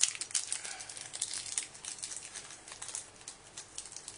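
Cellophane wrapper of a toy minifigure pack crinkling and crackling as it is torn open, loudest at the very start and then continuing in softer irregular crackles.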